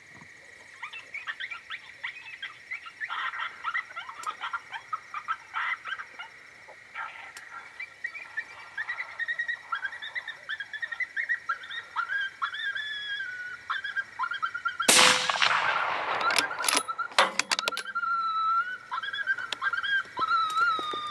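Rifle shot at coyotes about 15 seconds in: a loud crack with a long echo, followed a second or two later by a quick run of further sharp cracks. High, wavering yips and howl-like calls go on before and after the shots.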